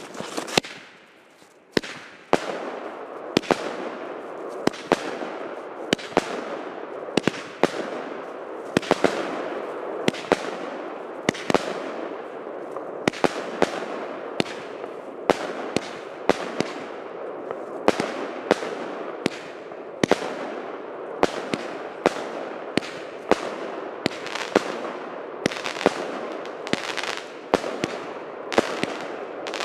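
Klasek 'Válka Světů' 90-shot firework cake firing. A few sharp reports open it, then from about two seconds in a steady crackle of bursting stars runs on, with sharp shot reports a little more than once a second.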